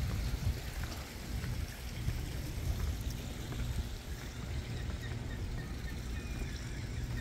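Water trickling and splashing over a steady low rumble, with no single loud event.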